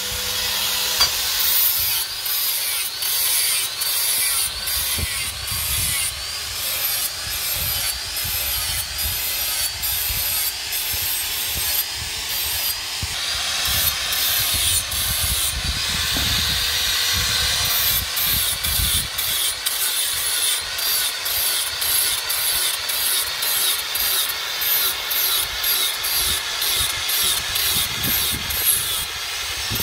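Electric angle grinder with an abrasive disc grinding steel knife blades. It runs steadily with a high whine that wavers in pitch as the disc bites into the steel, over a gritty grinding noise.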